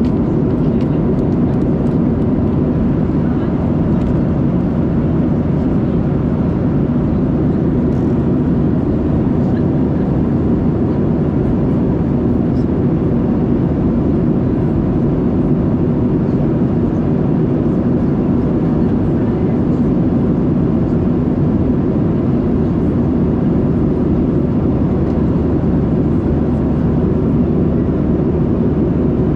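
Cabin noise inside a Boeing 737-700 in flight: the even, steady rumble of engines and airflow, heaviest in the low range, with a faint thin steady whine above it.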